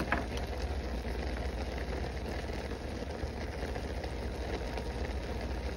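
Ground beef and sausage frying in a pan, a steady low sizzle.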